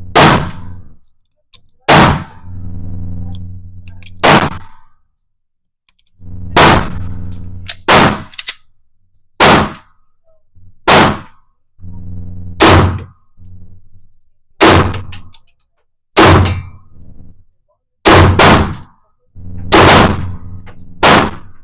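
Handgun shots at an indoor range, about fifteen of them, irregularly spaced a second or two apart, each with a short ringing echo off the range walls, and a low hum between some of the shots.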